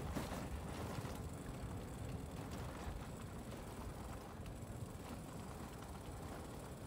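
Brompton folding bicycle rolling along a tarmac lane: low tyre and wind rumble on the microphone, with faint ticking of the freewheel ratchet.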